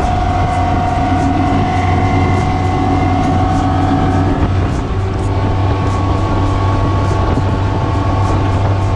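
Twin outboard engines running at high speed as a boat planes across open water: a steady low drone with a higher whine over it, mixed with rushing water and wind.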